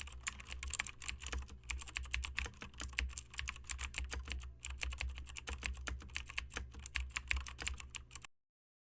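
Rapid keyboard typing, a quick irregular run of key clicks that stops abruptly about eight seconds in.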